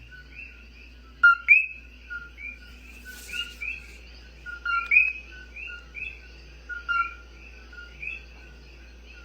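Chorus of common coquí frogs, many calling at once with the two-note "co-kee" call: a short lower note followed by a higher upward-sliding note, overlapping several times a second. A brief hiss sounds about three seconds in.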